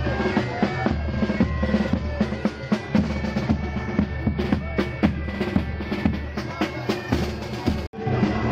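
Live band music led by drums: bass and snare strokes in a quick rhythm over sustained high pipe-like tones. The sound cuts out for an instant near the end.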